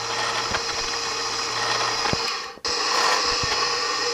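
Drill press running and boring a thin pilot hole for a drawbore peg into a hardwood chair part, a steady motor whine with cutting noise. It drops out for a moment about two and a half seconds in, then resumes.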